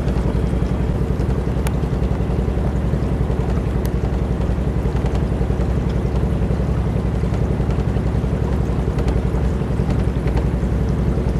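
The small gasoline engine of a Mokai motorized kayak running steadily, a constant drone with a fast, even flutter.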